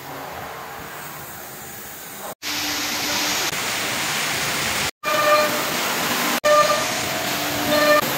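Steady hissing machine noise, with three brief dropouts where the footage is cut. In the second half a pitched hum swells up three times over the hiss.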